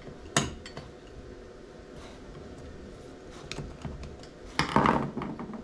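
Screwdriver prying at the clutch front plate of an automotive A/C compressor, metal against metal: a sharp click about a third of a second in, a few small clicks, then a louder burst of scraping and clinking near the end.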